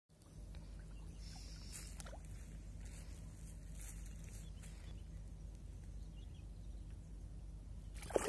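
A fish splashing and thrashing at the water's surface in short bursts, with one sharper, louder splash near the end, over a steady low hum.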